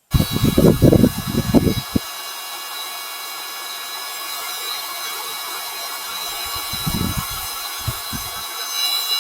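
Steady, many-toned high buzzing of a forest insect chorus, with heavy low thuds of knocks or wind on the microphone in the first two seconds and a few more near the end.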